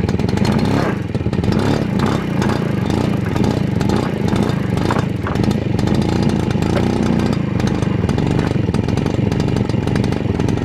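Piaggio Ciao moped's single-cylinder two-stroke engine running unevenly just after starting, bogging down rather than settling into a clean idle.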